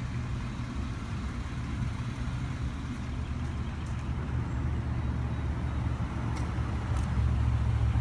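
Wind buffeting the microphone outdoors: a steady low rumble that grows louder about seven seconds in, with a couple of faint clicks.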